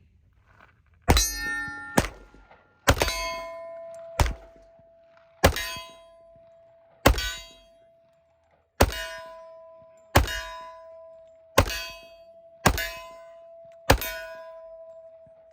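Steel targets struck by gunfire: about eleven sharp metallic clangs, a second or so apart, each leaving the plate ringing with a steady tone.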